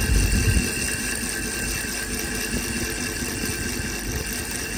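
Small DC motor spinning a disc, running with a steady whine over a low hum, with a louder low rumble in the first half second.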